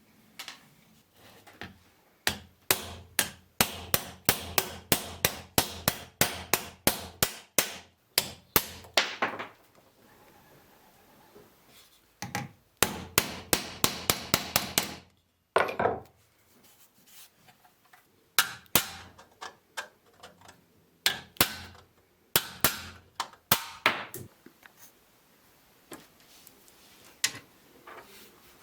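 Hammer blows in quick runs of about three sharp strikes a second, broken by pauses, with a few single knocks between the runs.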